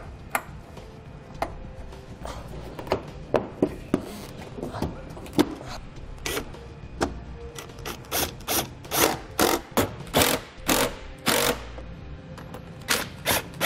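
Plastic bumper fascia and its fasteners being refitted: scattered sharp clicks and knocks as the panel and clips are pressed home. In the second half come a run of short, closely spaced bursts from a cordless impact driver driving the fascia screws.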